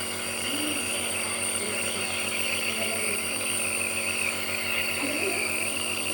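Electric nebulizer's compressor motor running with a steady, unchanging hum.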